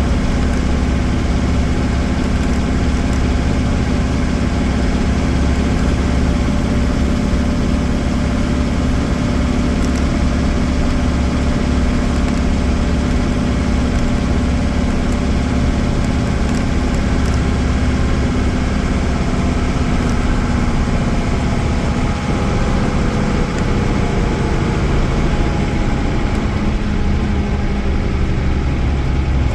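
Mercedes-Benz OM-366A six-cylinder diesel engine of an OF-1318 bus chassis running steadily, a low, even engine note, with a slight change in pitch in the last several seconds.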